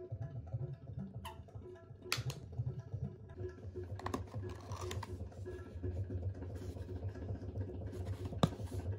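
Light taps and rustling of a cardboard takeaway fried-chicken box being handled, with a sharp click near the end as its lid is flipped open. A low steady hum and faint music sit underneath.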